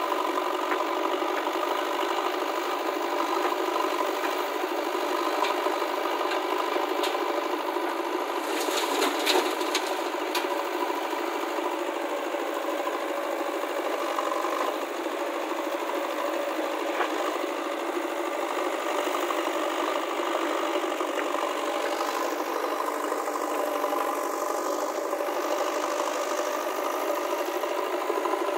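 Diesel engine of a JCB 3DX backhoe loader running steadily with a mechanical rattle as it digs and swings soil. A few sharp clatters come around nine to ten seconds in.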